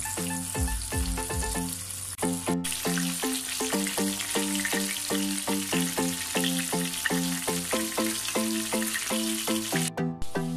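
Breaded chicken strips frying in a pan of hot oil, a steady crackling sizzle, with background music with a regular beat over it. The sound cuts out briefly near the end.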